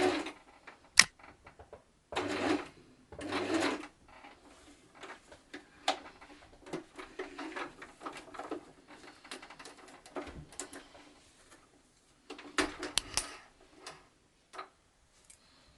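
Singer 8280 sewing machine stops running, then gives two short bursts of stitching a couple of seconds later and another short burst near the end. In between are scattered clicks and knocks of the machine being handled.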